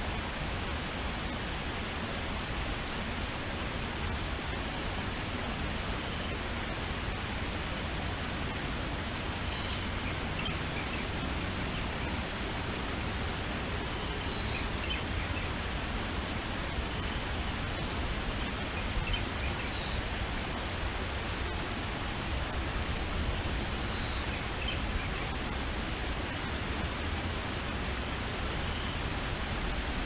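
Forest ambience: a steady, even rushing noise, with a small bird giving a short high call four times, about five seconds apart, from roughly ten seconds in.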